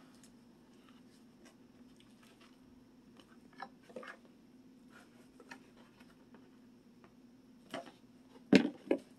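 Hands handling a cardboard toy box and its plastic contents: faint scattered clicks and rustles, then a few louder knocks near the end as the box is lifted and tipped. A low steady hum runs underneath.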